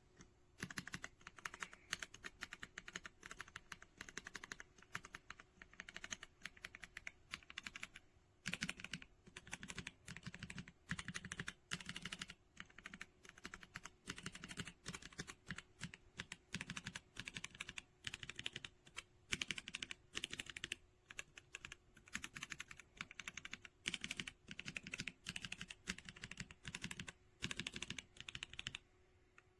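Continuous fast typing on a mechanical keyboard fitted with Akko V3 Penguin tactile silent switches: a dense run of soft, quiet keystrokes, with a faint steady hum underneath.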